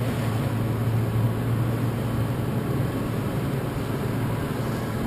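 Motorboat engine running at a steady low hum, under a constant hiss of wind and water.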